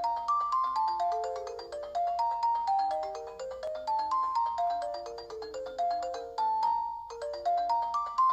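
Philips 530 mobile phone ringtone played on the phone's built-in synthesiser: a fast melody of short notes over a lower accompanying line. It breaks off briefly about seven seconds in and starts the same phrase over.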